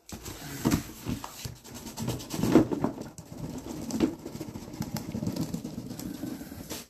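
A cardboard shipping box being slid up and off a stack of shrink-wrapped trading-card boxes: irregular scraping and rubbing of cardboard, with several light knocks, the loudest about two and a half seconds in.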